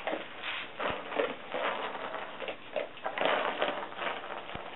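Treat-dispensing dog balls being nosed and pushed across a carpet, the treats inside rattling in irregular bursts.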